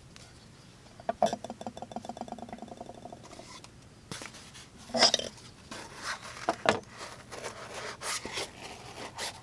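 A folding knife and objects handled on a tabletop: a rapid run of ticks for about two seconds, then scattered clicks, knocks and light scrapes, the sharpest knock about halfway through.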